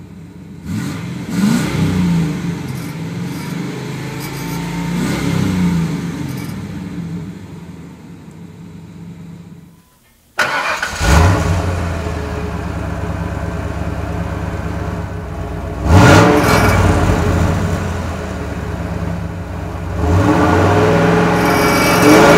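A 1996 Ford Explorer's 5.0-litre Windsor V8 at 197,000 miles being revved several times, each rev swelling and falling back. In the first half it is heard from the driver's seat. After a sudden break about ten seconds in, it is heard louder from behind at the tailpipe.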